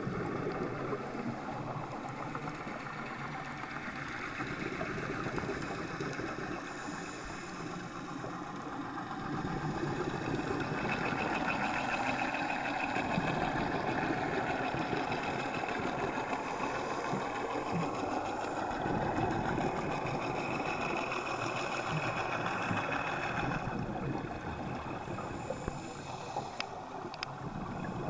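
A steady engine-like drone heard underwater, a little louder from about ten seconds in and easing off near the end.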